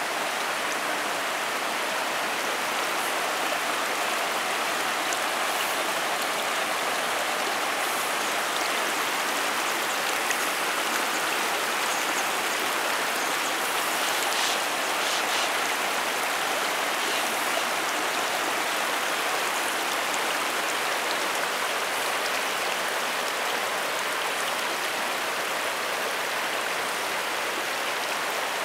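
Shallow river at low water running over and around stepping stones and concrete blocks: a steady rushing babble with a few faint small splashes.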